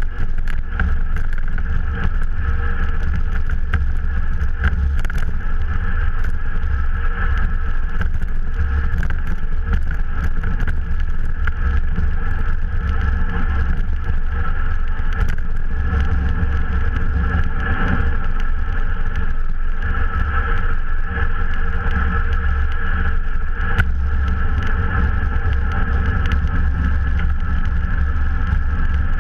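Steady rumble of wind buffeting the microphone, with tyre noise on asphalt, from a road bike riding at speed.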